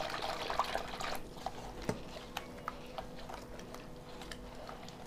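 A wooden dal ghotni (hand churner) mashing and stirring sattu flour into water in a steel bowl: wet squelching with scattered clicks of wood against steel, busiest in the first second.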